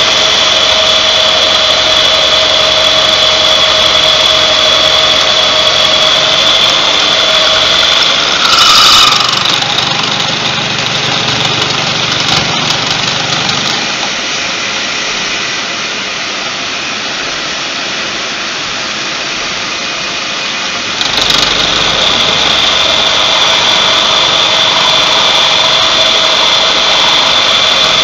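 Milling machine's cutter taking a slotting pass through metal at 800 RPM, a steady high-pitched whine over a lower hum. About 8.5 s in there is a brief louder scrape as the pass ends, the machine then runs quieter without the cutting whine, and around 21 s the whine starts again as the next pass begins.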